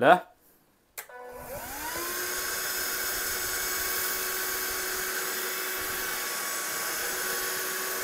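Silvercrest cordless wet and dry handheld vacuum cleaner switched on with a click about a second in, its motor whine rising over about a second and then running steadily.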